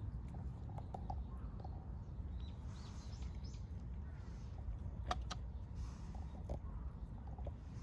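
Faint outdoor background: a steady low rumble with scattered small clicks and a few brief, faint bird chirps.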